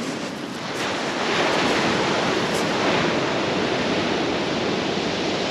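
Surf breaking and rushing on a steep shingle beach in a big swell. The wash swells up about a second in and keeps up a steady roar.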